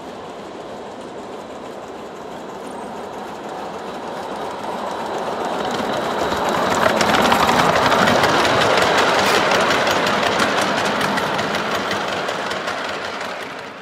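Miniature 5-inch gauge live-steam locomotive and its goods wagons running past, growing louder to a peak about halfway through and then slowly easing off, with rapid clicking from the wheels on the track as the train goes by.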